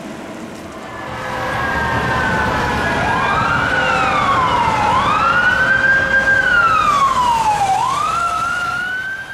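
Emergency vehicle siren wailing. It starts about three seconds in and slowly sweeps up and down in pitch, one rise or fall every second or two, over vehicle noise that grows louder.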